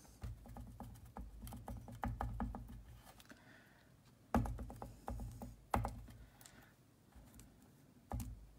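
Embossing ink dabber dabbed repeatedly onto a die-cut paper piece: a run of soft, irregular taps, with two louder knocks at about four and a half and nearly six seconds in.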